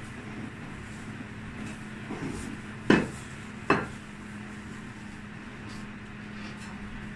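A dish knocking twice on a wooden tabletop, two sharp knocks less than a second apart, over a steady low hum.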